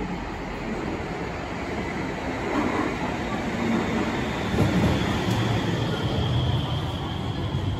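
Cologne light-rail train pulling into an underground station: the rumble of its wheels on the rails grows louder as it approaches and passes close by, with a faint high whine from about four seconds in.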